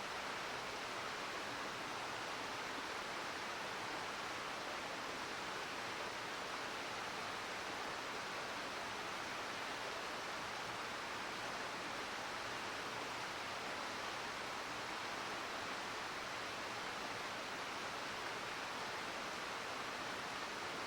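Steady, even rush of a mountain river flowing over rocks.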